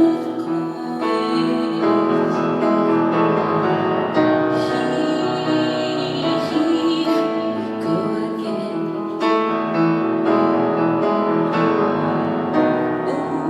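Piano playing chords in a live performance of a slow song, with sustained notes ringing on.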